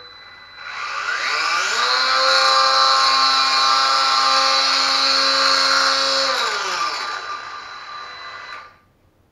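Parkside cordless angle grinder running free with no load at its top speed setting, about 10,000 rpm. The motor spins up with a rising whine, holds steady for several seconds, then is switched off and winds down with a falling whine until it stops near the end.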